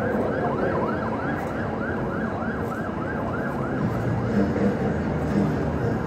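An electronic yelp siren, its pitch rising and falling quickly about four times a second, fading out about three and a half seconds in and coming back near the end, over the steady hum of a crowd.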